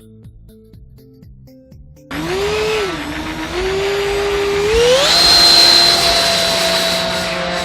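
Twin 70 mm electric ducted fans of an RC F-22 jet spooling up with a loud whine: it starts suddenly about two seconds in, rises, dips briefly, then climbs to a higher, steady scream about five seconds in as the throttle is pushed up. Faint background music before the fans start.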